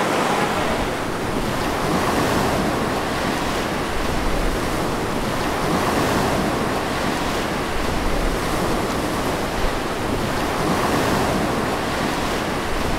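Man-made waves breaking and churning in a wave pool: a steady rush of surf.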